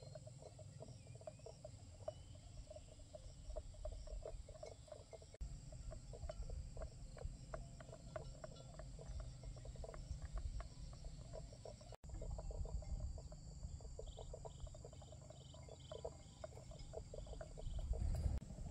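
Frogs and insects calling in a rapid, ticking chorus over a steady high insect drone, with low wind rumble on the microphone. Near the end a short run of higher chirps, about three a second, joins in.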